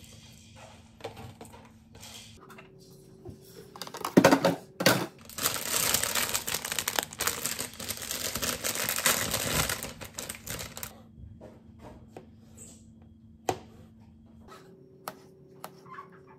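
Iceberg lettuce leaves torn and crunched by hand: a dense crisp crackling and snapping that comes in about four seconds in and runs for some seven seconds. A few sharp knife clicks on a plastic cutting board follow near the end.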